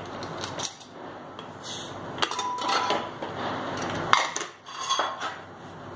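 Stainless-steel pressure cooker lid being worked loose and lifted off, with a string of metal clanks and clinks, a few ringing briefly. The cooker has finished its whistle and its steam is spent, so there is no hiss.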